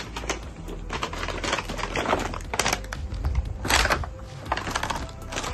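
Clear plastic wrapping crinkling and rustling as hands unwrap a boxed pillowcase and sleep set, with irregular crackles and a louder rustle about four seconds in.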